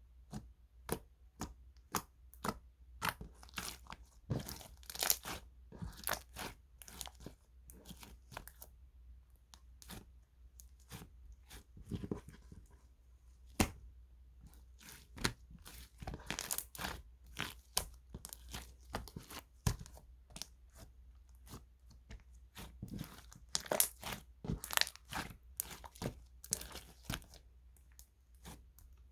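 Slime being squeezed, pressed and pulled by hand, crackling and popping with many irregular sharp clicks.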